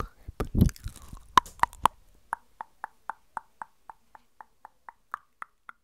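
Close-miked ASMR mouth sounds: wet, smacking mouth noises with a few sharp clicks, then from about two seconds in a steady run of hollow mouth clicks, about four a second.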